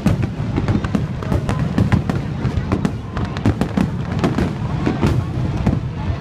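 Aerial fireworks shells bursting in quick succession: many sharp bangs and pops a second over a steady low rumble.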